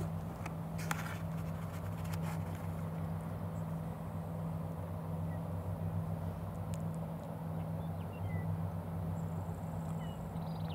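A steady low hum under an even hiss of outdoor background noise, with a few faint clicks about a second and two seconds in.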